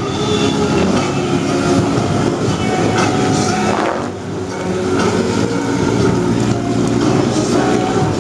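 ATV engines running steadily under load while wading through deep muddy water, with water churning and splashing around the machines. A brief dip in the engine sound about four seconds in.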